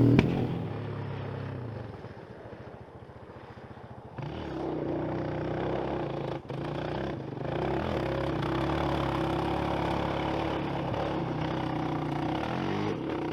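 Off-road vehicle engines running. A loud engine fades away at first, then about four seconds in a steadier engine sound comes in and holds.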